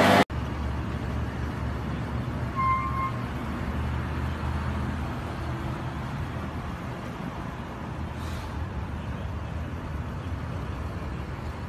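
Steady outdoor traffic noise with a low vehicle rumble, and one short high beep about two and a half seconds in. The sound drops out for a moment just after the start.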